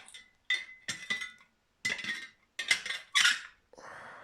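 Small metal tools and parts clinking and knocking on a workbench as they are handled, some strikes leaving a brief metallic ring, followed near the end by a soft rustle.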